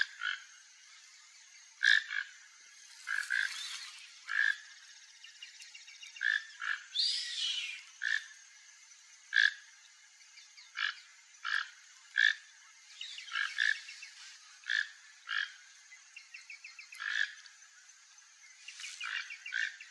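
Toco toucan giving short calls over and over, roughly once a second and some in quick pairs. A steady faint high hum and another bird's brief song sit behind them.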